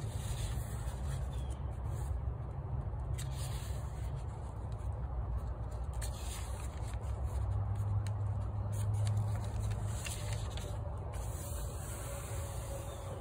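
Pages of a paper book turned and smoothed flat by hand: a few brief papery rustles and rubs over a steady low hum.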